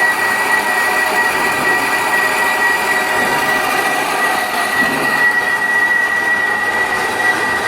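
Portable boring machine running under power with a steady, high-pitched metallic whine over continuous machining noise.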